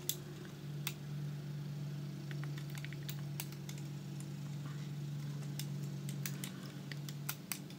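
Scattered light clicks and taps, irregular and a dozen or so, as a plastic loom hook picks up rubber bands and loops them forward over the pegs of a plastic Rainbow Loom, over a steady low hum.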